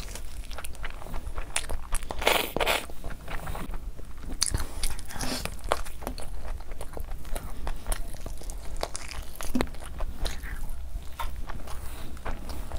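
Close-miked wet chewing and lip-smacking of curry-soaked meat and rice, with many sharp mouth clicks.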